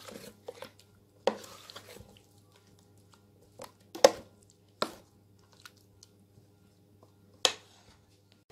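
A spoon mixing chicken in a thick yogurt and herb marinade in a stainless steel bowl: soft wet squelching, with a handful of sharp knocks of the spoon against the bowl, the loudest about four seconds in.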